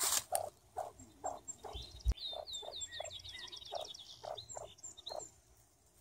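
Ruffed grouse hen giving soft, low clucks about twice a second. A songbird sings a quick series of high, descending notes in the background a couple of seconds in.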